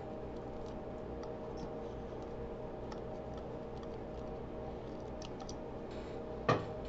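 Faint, scattered small metallic clicks and ticks as the clutch pressure-plate bolts of a Harley-Davidson Dyna are spun out by hand, over a steady hum. One sharper click comes about six and a half seconds in.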